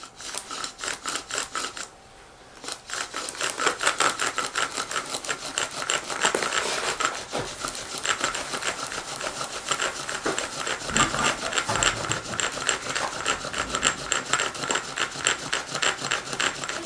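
Bow drill at work: a wooden spindle spun back and forth in the socket of a wooden hearth board by a corded bow, giving rhythmic friction scraping at about three strokes a second. It pauses briefly about two seconds in, then runs on steadily as the drilling grinds charred wood dust toward an ember.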